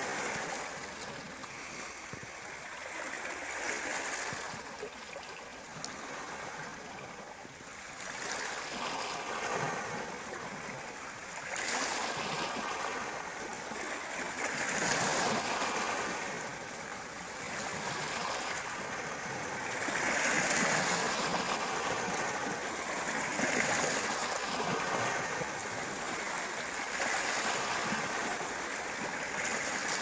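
Continuous rushing water that swells and eases every three to four seconds.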